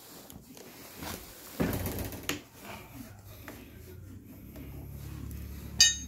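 Hand-tool work on a scooter's front disc brake caliper: a hex-bit socket on a driver handle clicking and clinking against the caliper bolts as they are loosened, with a louder scraping clatter about a second and a half in and a sharp metal click near the end.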